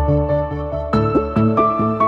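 Gentle new-age background music: pitched notes struck at an even pace over a sustained bass line.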